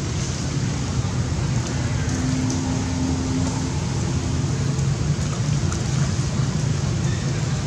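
Shallow stream water rushing steadily with a strong low rumble, and small splashes as a baby monkey wades through it.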